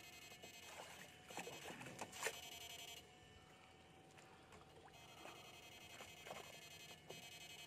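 Faint high electronic whine from a battery-powered electrofishing rig. It cuts out about three seconds in and comes back about two seconds later. A few soft knocks and splashes come in the first half and again about six seconds in.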